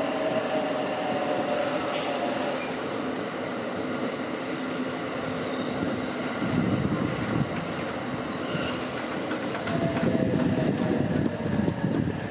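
Electric train moving through a station's track yard: a motor whine falling in pitch near the start and again near the end, with rumbling of wheels on rails about six seconds in and near the end.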